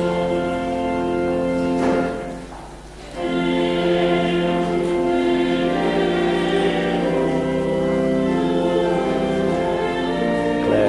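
Choir singing slow, sustained chords of sacred music. It breaks off briefly about two seconds in, then resumes.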